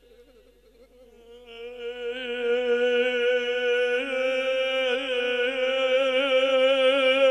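Devotional music: one long held melodic note, its pitch wavering slightly, swelling in about a second and a half in and then holding steady without a break.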